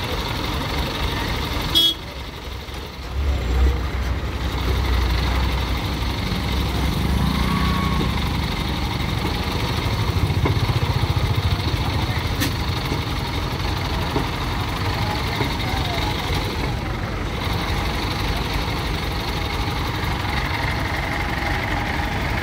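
Hydra mobile crane's diesel engine running steadily while it holds up the front of a loaded truck, with a heavier, deeper rumble from about 3 to 8 seconds in.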